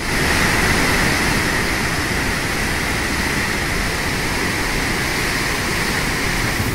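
Floodwater rushing through the open gates of a river barrage: a steady, unbroken rush of churning water.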